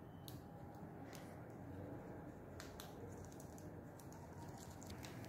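Faint, scattered clicks and crackles from hands handling an opened power bank's plastic casing and a strip of adhesive tape, a few of them bunched together about three to four seconds in, over a low steady hum.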